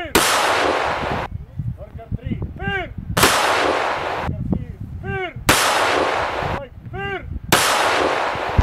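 Rifle volleys of a graveside gun salute: four loud volleys fired by a line of riflemen about two to three seconds apart, each shot trailing off in an echo lasting about a second.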